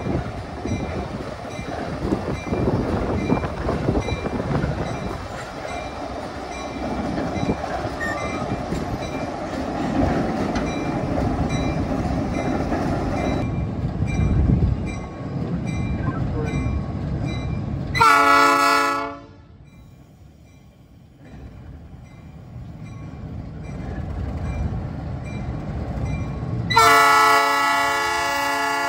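ALCO RS-1 diesel switcher, its ALCO 539 engine running as it moves slowly past with hopper cars, wheels rumbling on the rails. Its horn sounds one short blast about two-thirds in, then a longer blast near the end.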